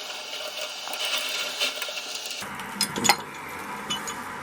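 Garden hose coupling being tightened onto a water heater drain-cleaning tool: a few light metallic clicks and clinks about three seconds in and again near four seconds, after a steady hiss.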